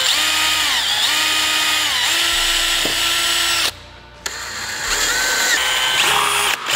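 Small electric drill running in two long runs with a short break between them, its motor pitch sagging and picking up again several times as it bites under load.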